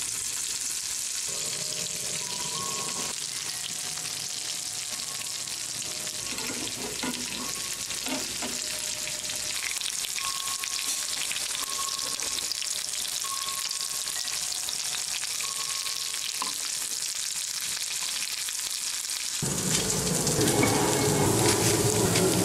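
Potato-and-cheese patties sizzling steadily as they fry in oil in a skillet. Short ringing tones of wind chimes come and go over the sizzle.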